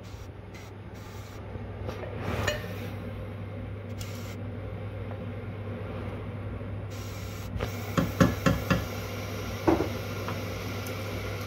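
A wooden spoon scrapes and knocks tomato pasta sauce out of a glass jar into a cooking pot. There are a few light taps early on and a run of sharper knocks about eight seconds in, over a steady low hum.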